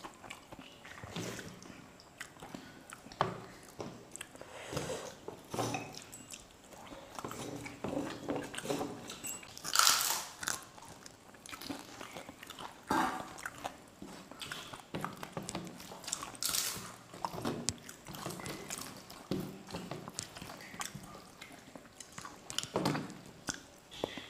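Chewing of rice and dal eaten by hand, with sharp crunches of crisp papad being bitten and broken, the loudest about ten and seventeen seconds in.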